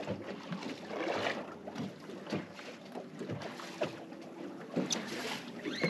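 Water slapping and lapping irregularly against a fishing boat's hull, with a few light knocks and some wind on the microphone.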